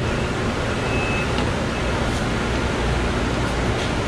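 Steady rushing noise beside a stationary KTX high-speed train at the platform, with a short, thin high tone about a second in.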